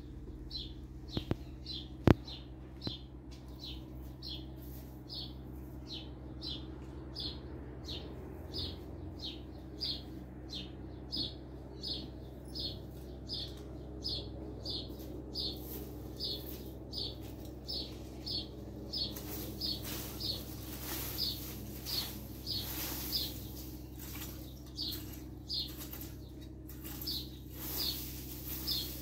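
A bird repeating one short, slightly falling chirp over and over, about one and a half a second. Two sharp knocks come near the start, and from about two-thirds of the way through a metal rake scrapes over the dirt yard in repeated strokes.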